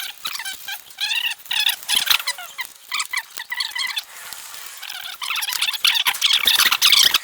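Rapid squeaking strokes of something being scrubbed hard against a metal sealing surface, cleaning a transfer case housing half. The squeaks slide up and down in pitch and come thickest and loudest in the last couple of seconds.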